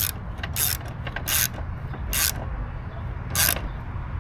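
Ratchet wrench clicking in five short, irregular strokes as a bolt is run in on the mower.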